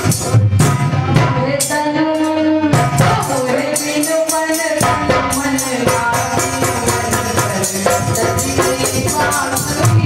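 Hindi devotional bhajan: a woman singing through a microphone, holding long notes in the middle, over a quick, steady beat of hand percussion with jingles.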